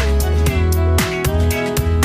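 Background music with a steady beat under a melody whose notes slide from one pitch to the next.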